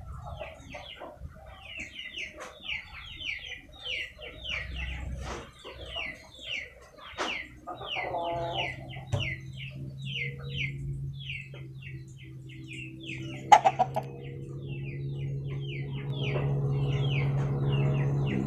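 Chickens giving a continuous run of short, high, falling peeps, about three a second, with a few lower clucks mixed in. About three-quarters through there is one loud sharp knock, and a steady low hum grows louder over the last few seconds.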